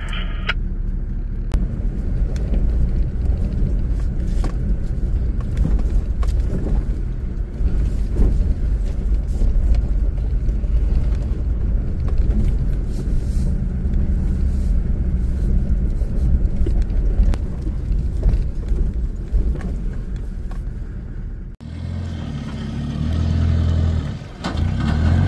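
Toyota LandCruiser 76 Series driving on a dirt track, heard from inside the cab: a steady low rumble of engine and road noise with small knocks. About 21 s in it cuts to a Mitsubishi Triton ute's engine working harder and louder as the ute climbs a dirt mound.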